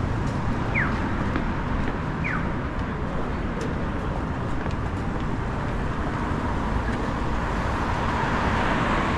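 City street traffic: cars driving past on the road in a steady wash of traffic noise, with a faint steady hum. A few short, high falling chirps sound in the first couple of seconds, and a car passing swells louder near the end.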